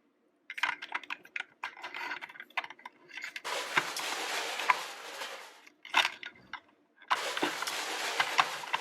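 Plastic toy fire truck ladder being worked by hand: a series of clicks and knocks, then two stretches of about two seconds each of sliding, rattling plastic with clicks inside them as the ladder is raised and extended.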